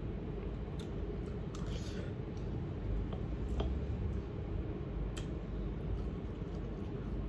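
Eating sounds: a few light clicks of a fork against a ceramic bowl, and chewing, over a steady low hum.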